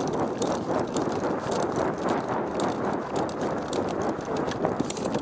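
Footsteps of a person running, with gear rattling at each stride, heard close to a helmet-mounted camera. There is a dense run of irregular clicks and knocks.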